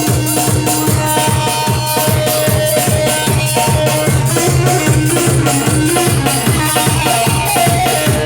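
Folk dance music with a steady drum beat, about three to four strokes a second, under a droning low note and a melody line.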